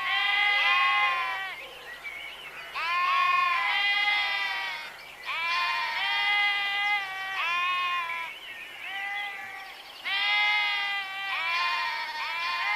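Several sheep bleating, their calls overlapping in four bouts a few seconds apart, each bleat a wavering, quavering call.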